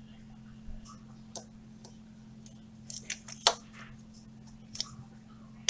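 Scattered clicks and light taps from fingers handling and turning a plastic cam sensor wired to test leads, the loudest about three and a half seconds in, over a faint steady low hum.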